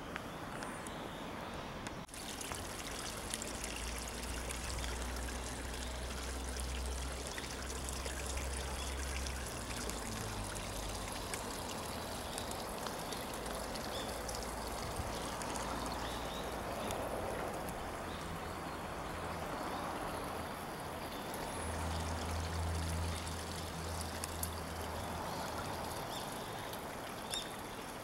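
Steady sound of running water trickling, with a low rumble coming and going underneath.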